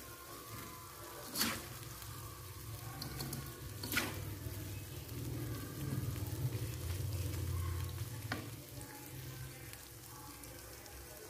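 Salted squid and jengkol in chili sambal sizzling gently in a coated wok while a plastic slotted spatula stirs and scrapes through it. The spatula knocks sharply against the pan about one and a half, four and eight and a half seconds in. A low hum swells in the middle.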